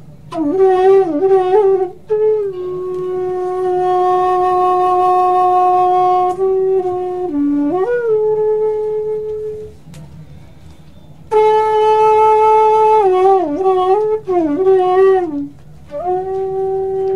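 Background music: a slow solo melody on a wind instrument, with long held notes and sliding ornaments between notes. Short pauses break the phrases, the longest about two-thirds of the way in.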